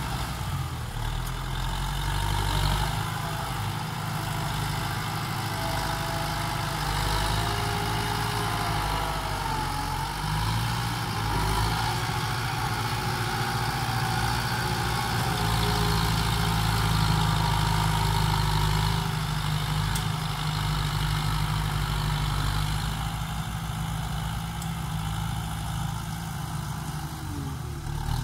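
Kubota farm tractor's diesel engine running steadily as its front dozer blade pushes and levels loose soil.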